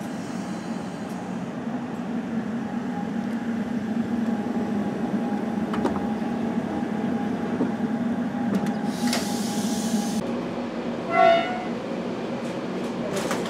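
Diesel railcar's engine running steadily at the platform, a low drone with a faint steady whine above it, and a hiss about nine seconds in. Near the end a short, loud tone sounds once, followed by a few clicks.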